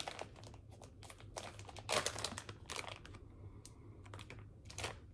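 Clear plastic bag of wax melts crinkling and crackling as it is handled, in quick irregular clicks.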